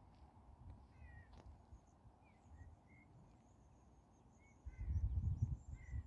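Wind buffeting the microphone as a low rumble that gusts much louder near the end, with small birds giving short chirping calls and a faint high trill in the background.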